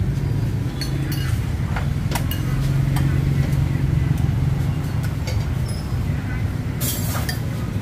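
Low hum of street traffic, motorbikes running by, swelling for a couple of seconds in the middle. Scattered light clinks of bowls and utensils, a brief hiss near the end, and background voices.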